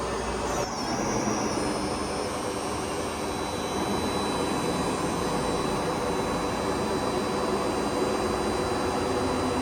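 Pinacho Taurus 260 CNC lathe running with a steady mechanical whir, with a few held tones over the noise.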